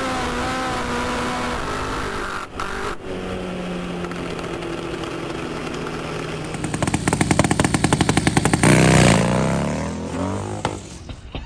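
Drag-racing motorcycle engines at full throttle: first a Top Fuel motorcycle heard from onboard, a steady engine note under a rush of noise. From about halfway through comes a rapid, even pulsing engine note, as a turbocharged Harley-Davidson bagger revs and launches off the line; it is loudest near the end, then falls away.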